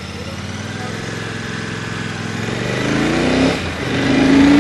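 Royal Enfield Shotgun 650's 648 cc parallel-twin engine and twin exhausts under way, the note climbing as the bike accelerates, dipping briefly about three and a half seconds in, then climbing again, loudest near the end.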